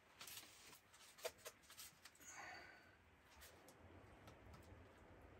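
Near silence, with a few faint clicks and light scrapes of a fork against a plate during eating.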